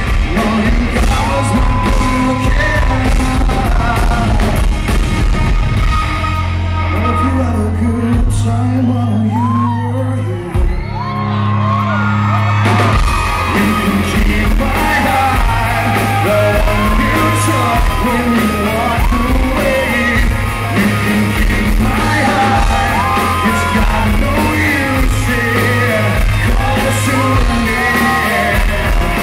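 Live rock band playing a song, with a male lead singer over electric guitars, bass and drums. About seven seconds in the band thins to a quieter stretch of held low notes under the voice, and the full band comes back in about thirteen seconds in.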